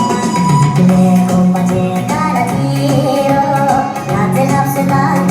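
Loud music with singing: a sung melody over instruments.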